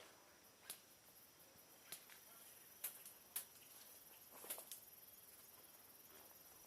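Near silence with a steady faint hiss and about six short, faint clicks and snaps scattered irregularly, the last one a little before the midpoint.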